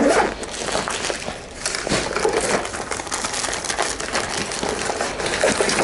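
Plastic bags and packed clothing crinkling and rustling as hands rummage through a suitcase, a dense run of small crackles.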